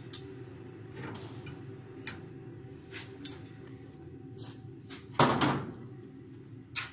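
Manfredi Millennium casting machine with its lid open, giving a steady low hum, with scattered sharp clicks and knocks. About five seconds in there is one short, loud rush of noise.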